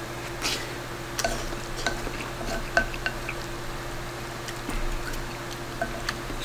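Wooden spoon scraping and clicking against a bowl while scooping soft egg and rice, with wet chewing and mouth sounds, over a steady low hum.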